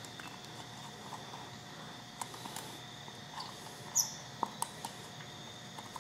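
Light metallic clicks and taps of a screw being fitted and started by hand into the reed valve assembly on a Yamaha DT80's two-stroke cylinder: a few small ticks, one sharper tap about four seconds in and several more just after, over a faint steady whine.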